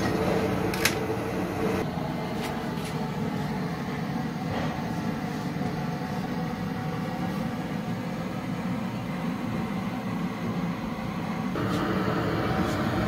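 Portable bottled-gas burner running steadily under a frying pan of sunflower oil as it heats, a low even flame noise, with a sharp click about a second in.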